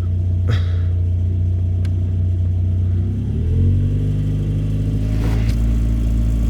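1991 Mazda MX-5's four-cylinder engine idling, then revved up about three seconds in and held at higher revs, heard from under the dashboard. The revving tests whether holding the rattling coolant line against its neighbour stops the dashboard rattle.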